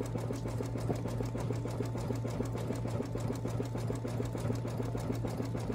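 Computerized embroidery machine stitching a satin-stitch outline: a steady motor hum under rapid, even needle strokes.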